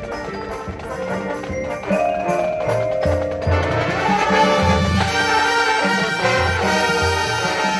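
High school marching band playing its field show: sustained brass chords with front-ensemble mallet percussion, swelling to the full band with repeated low drum hits from about three seconds in.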